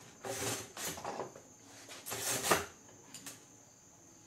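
Hand-tool handling noise: three short noisy bursts of rustling and scraping, the last the loudest, as a hand reaches across and fits a flathead screwdriver to a pilot air jet on a bank of Mikuni carburetors.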